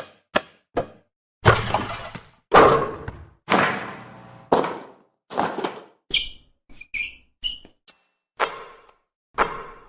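A run of basketball sound effects. First a few quick bounces of a ball, then several louder hits that ring on and echo as in a large gym. Short high squeaks, like sneakers on a court floor, come about six to seven and a half seconds in, followed by two more bounces.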